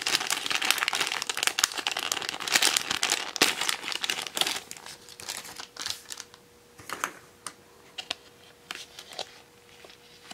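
My Little Pony blind-bag foil packet crinkling and tearing as it is ripped open by hand. About halfway through the crinkling stops, leaving a few light clicks and rustles as the card and small plastic figure are handled.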